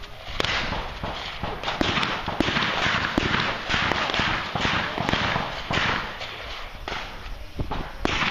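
Shotgun fired in quick succession during a practical shooting stage, a shot about every half to three-quarters of a second over a steady hiss, with a lull about two-thirds of the way through.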